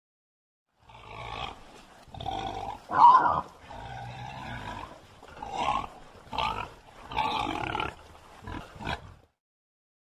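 Bearded pig vocalizing: a string of about eight separate calls of varying length, the loudest about three seconds in.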